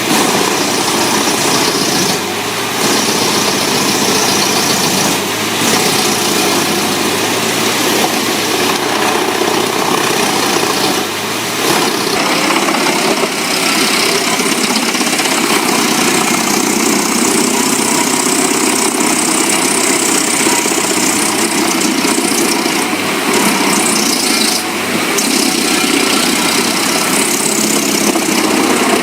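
Large wood chipper running, a steady heavy engine and shredding noise with brief dips a few times.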